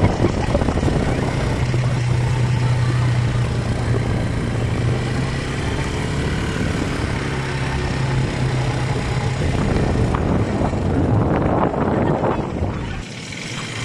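ATV (quad bike) engine running at a steady pitch while riding, under a heavy rushing noise of wind on the microphone. The sound drops away sharply near the end.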